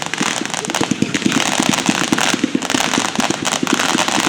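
Red Rhino 145-shot Fire Over Water fireworks cake firing in quick succession: sharp launch thumps, many a second, over a steady crackling hiss.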